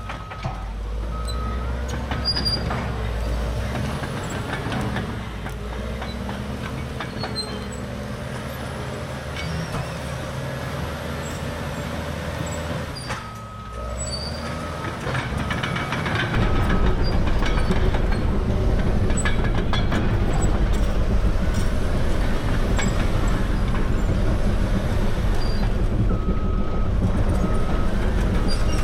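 CAT D6R dozer's C9 diesel engine running under work, growing louder and heavier a little past halfway. Short beeps repeat in a few brief groups over it.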